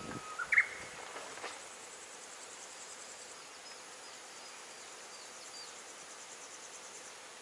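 Summer countryside ambience: insects trilling in fast, evenly pulsed high runs over a faint steady hiss, with a short rising chirp about half a second in.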